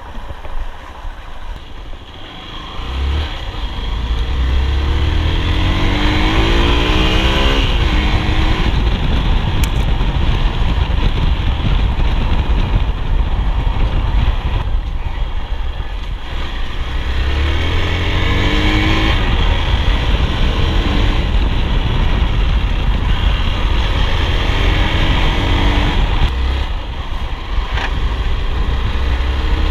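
Motorcycle engine under way, rising in pitch as it accelerates through the revs three times. A heavy wind rumble on the microphone runs underneath.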